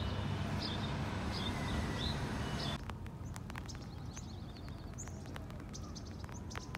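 Small birds chirping in short repeated calls over a steady low rumble. About three seconds in, the rumble drops away abruptly, leaving quieter outdoor ambience with higher, scattered chirps and faint clicks.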